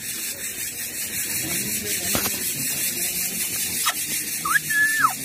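Steady hiss, with an Indian ringneck parakeet giving one short whistled call near the end that rises, holds and falls.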